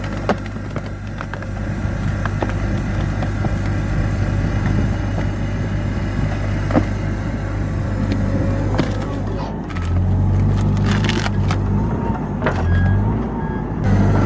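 CAT 450E backhoe loader's diesel engine running under hydraulic load while a screw-type cone splitter bores into a stump. The engine note steps up about ten seconds in, and scattered sharp cracks of splitting wood come through.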